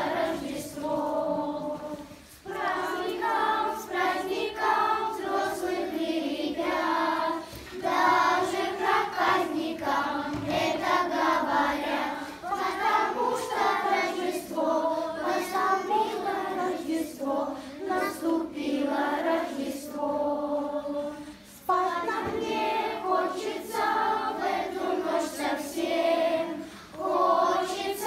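Children's choir singing a Christmas chant together, in phrases broken by a few short pauses for breath.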